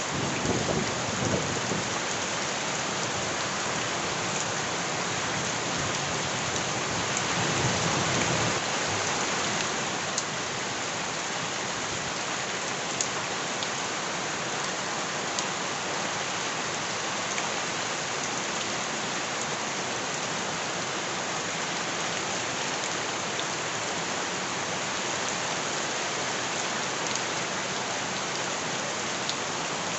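Steady heavy rain falling on surfaces, a dense even hiss. A low rumble swells at the start and again about eight seconds in, making the rain briefly louder.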